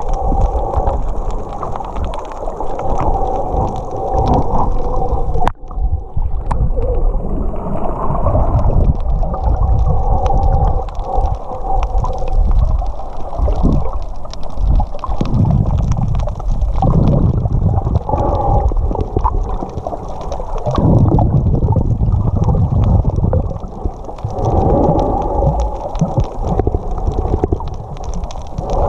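Muffled underwater water noise, a continuous low churning rumble and gurgling, with one sharp click about five and a half seconds in.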